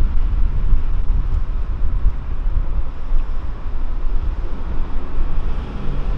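VW Golf 4 Cabrio's 174 PS naturally aspirated 2.8-litre VR6 engine running while the car cruises, heard from inside the cabin: a steady low rumble mixed with road and wind noise.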